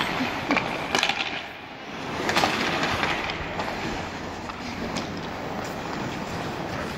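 Ice hockey play: skate blades scraping and hissing on the ice, with a few sharp clacks of sticks and puck, the clearest about a second and two and a half seconds in.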